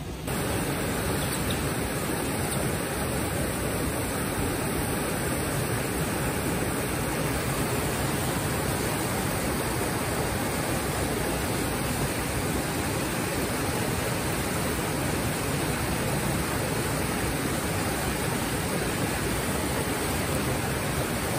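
Steady rush of flowing water, an even hiss without breaks or changes.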